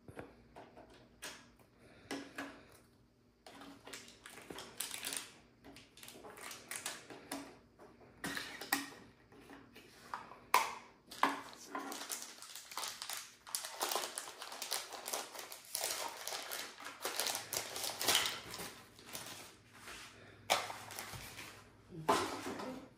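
Kit packaging and pieces being handled by hand: irregular rustling with scattered clicks and knocks, busier in the second half.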